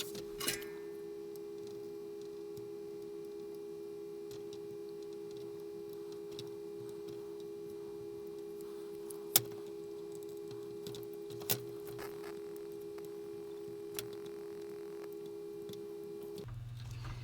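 A steady electrical hum at one fixed pitch, cutting off suddenly near the end, with three small clicks or taps during it.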